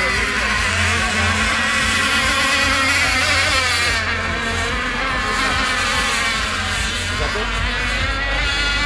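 High-pitched buzzing whine of 26 cc two-stroke engines on radio-controlled catamaran/tunnel racing boats running flat out, the pitch wavering up and down continuously as the boats race around the course.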